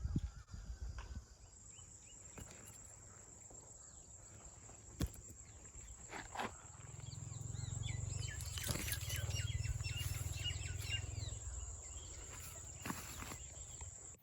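Rural outdoor ambience with a steady high whine. Birds chirp quickly for a few seconds in the middle over a low rumble, with a few scattered clicks.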